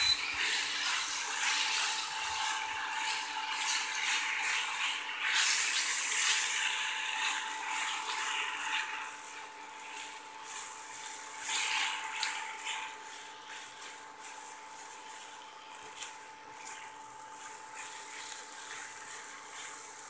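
A spatula stirs and scrapes a creamy broccoli-and-chicken mixture around a square nonstick pan, with the hot food sizzling; it is loudest about five to six seconds in. A steady hum runs underneath.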